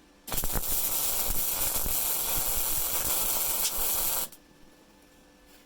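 Rohr MIG-250MI inverter MIG welder laying a bead: the arc strikes suddenly, crackles and hisses steadily for about four seconds, then cuts off as the trigger is released.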